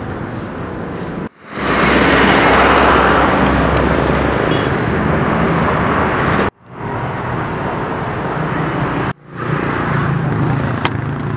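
Road traffic noise with motor vehicles passing, heard as several short ambient clips that each cut off abruptly.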